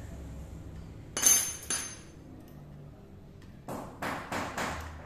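Metal-on-metal clinks and knocks from hand tools on a steel camshaft lathe jig. A sharp ringing clink comes about a second in, with a smaller one just after. Near the end there are four quick knocks as a thin steel rod is fitted to the jig.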